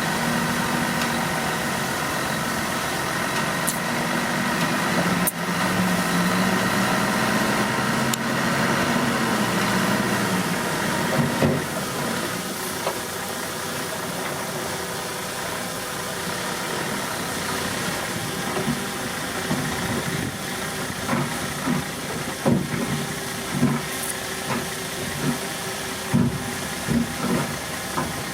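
Heavy diesel earthmoving machinery running, its engine note rising and falling over the first ten seconds or so. In the second half it turns to a lower steady run with many short knocks and clanks.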